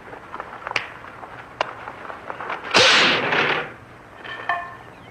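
A wooden board smashed by a karate strike: a loud sharp crack with a short rush of noise about three seconds in, after two lighter snaps.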